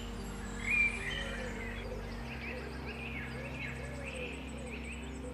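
Several wild songbirds singing and chirping together, a busy run of short whistled and slurred notes, the loudest about a second in. Under it a soft, steady ambient music drone changes chord about two seconds in.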